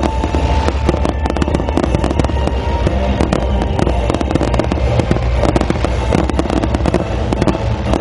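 Dense fireworks barrage: many shells bursting in rapid, overlapping bangs and crackles over a continuous low rumble.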